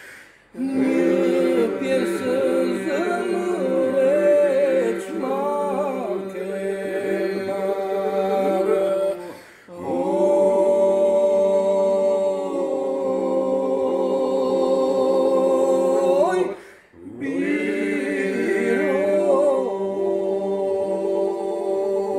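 Unaccompanied Albanian polyphonic singing in the Vlora (Lab) style: lead and answering voices weave the melody over a steady group drone (iso). The singing breaks off briefly about half a second in, near the middle, and about two-thirds through.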